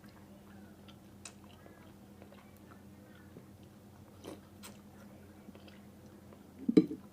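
A person eating boat noodles: quiet chewing and mouth clicks, with one louder short sound near the end.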